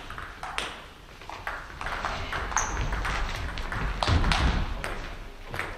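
Table tennis ball clicking back and forth in a rally, off the table and the bats at an uneven pace, echoing in a sports hall. A dull thump about four seconds in is the loudest sound.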